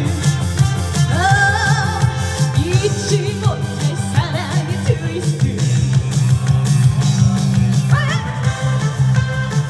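Live Korean trot song: a woman's singing voice over amplified backing music with a steady beat. The vocal lines come and go, with held, wavering notes early on and a rising phrase near the end.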